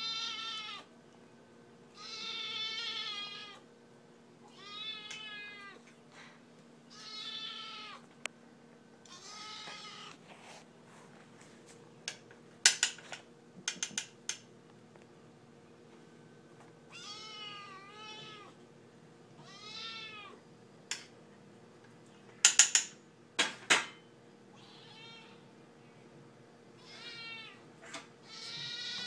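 A Siamese kitten meowing loudly and insistently for her dinner, raptor-like: about a dozen drawn-out calls, each rising and falling in pitch, every two to three seconds. Two short runs of sharp clicks and clatter, the loudest sounds, come about halfway through and again later.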